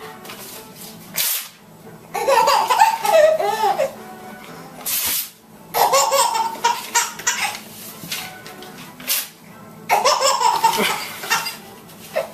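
A baby laughing hard in three bouts, each set off by a short rip of paper being torn.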